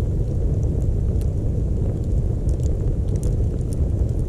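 Self-feeding fire of leaning split logs burning, a steady low rumble of flame with scattered sharp crackles and pops from the wood.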